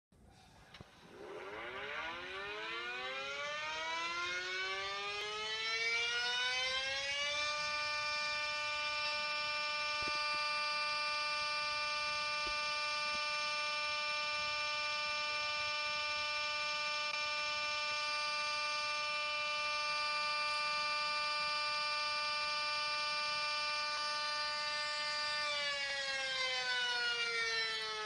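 Sentry 40V2T two-tone outdoor warning siren winding up over about six seconds to a steady pitch, holding it as the steady alert signal of a siren test, then starting to wind down a couple of seconds before the end.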